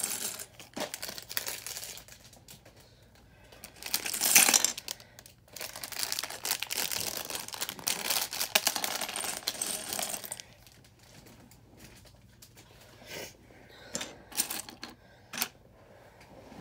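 Plastic bags of LEGO pieces being handled and moved about: crinkling plastic with small pieces clattering inside. Several sharp clicks follow near the end.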